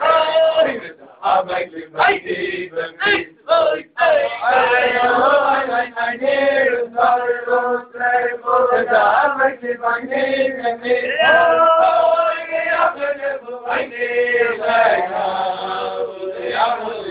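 A group of men singing a Hasidic tune together, with a chant-like melody in unison.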